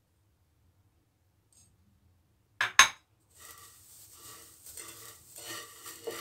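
Two sharp knocks of a china bowl set down on the table, then a hand working oil into a platter of steamed vermicelli (seffa noodles), a steady rustle pulsing with each stroke.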